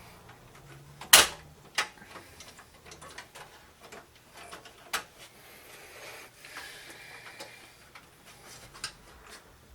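Sharp clicks and knocks of drives and parts being handled and fitted inside a desktop computer case, the loudest a little over a second in, with a few lighter clicks after it.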